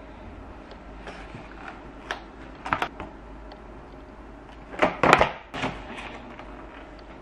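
Clear plastic clamshell fruit packs being handled and lifted out of an insulated delivery bag: a few short clicks and crinkles, the loudest cluster about five seconds in, over a steady low hum.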